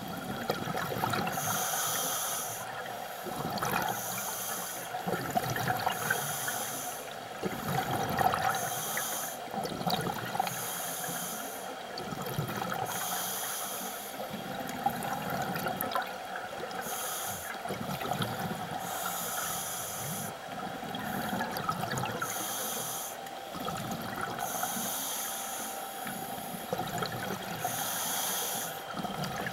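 Scuba diver breathing through a regulator underwater: repeated hissing breaths about every second or two, with low bubbling as exhaled air escapes, over a steady hum.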